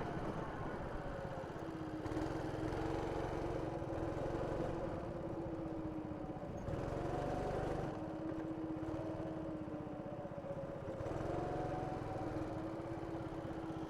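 Go-kart's small petrol engine running under way on the track, its note rising and falling as the kart speeds up and eases off, over a low rumble.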